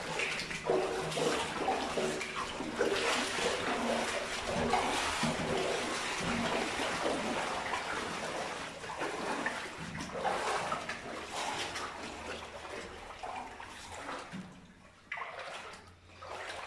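Water splashing and sloshing in irregular pulses, as of someone wading through water in waders; it eases off near the end.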